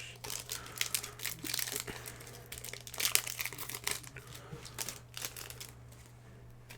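Foil wrapper of a Pokémon card booster pack crinkling with dense sharp crackles as it is handled and opened, thinning out near the end.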